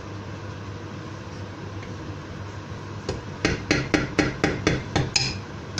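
Wooden spatula knocking against the rim of a frying pan of sauce, about eight quick even knocks at roughly four a second, starting about three seconds in, over a steady low hum.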